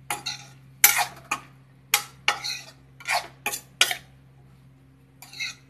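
Metal spatula scraping and stirring diced papaya in a metal kadhai: a run of quick scrapes about every half second, a pause of about a second, then one more scrape near the end.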